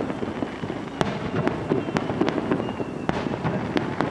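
Rapid-fire starmine fireworks barrage: shell bursts following one another in quick succession over continuous crackling, with a few faint whistles.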